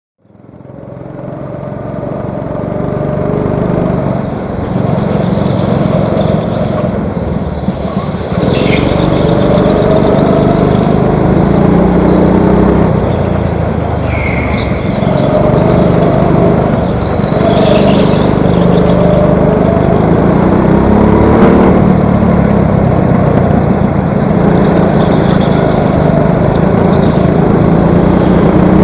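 Go-kart engine heard from onboard the kart, its note rising and falling as the throttle opens and closes through the corners, with other karts running alongside. The sound fades in over the first couple of seconds, and a few brief high squeals cut through.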